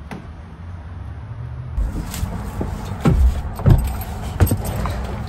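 Someone climbing into a pickup truck's cab and settling into the driver's seat: rustling and several sharp knocks as he moves around and sets things down.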